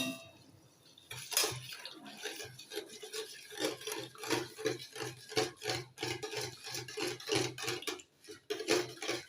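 A utensil stirring powder into water in a bowl, clinking and scraping against the bowl in an even rhythm of about two strokes a second. The powder is sodium lauryl sulfate (SLS) being dissolved in room-temperature water.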